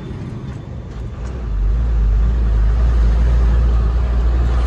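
Truck engine running, a low rumble that grows louder about a second in and then holds steady.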